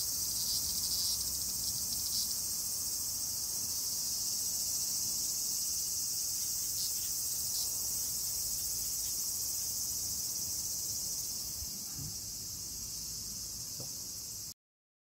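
A steady chorus of cicadas buzzing: a high, even, sizzling hiss with no breaks, which cuts off suddenly near the end.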